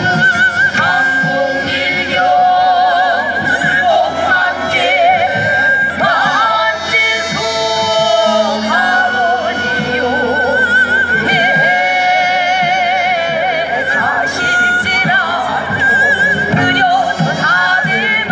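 Korean traditional music: a melody with wide, wavering vibrato over ensemble accompaniment, with no pause.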